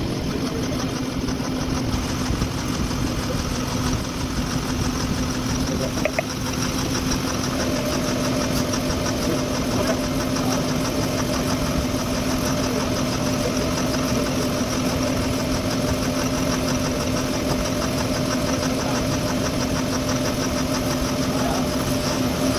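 Milling machine spindle turning a boring bar that cuts out the bore of a forklift steering axle housing, peeling off a steel chip: a steady machining hum with a constant tone, and a second, higher tone joining about a third of the way through.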